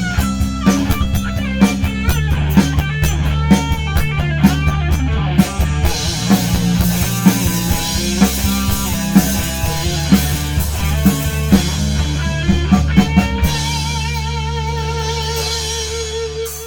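Rock band playing an instrumental passage: a guitar line with bending notes over bass and drum kit. About 13 seconds in the drums stop and a held guitar note with wide vibrato rings over a sustained bass note.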